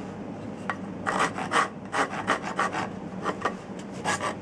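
Hand file rasping the end of an ash axe handle in short strokes, about three a second, starting about a second in. The wood is being taken down to blend a small shelf flush so the handle fits into the axe head.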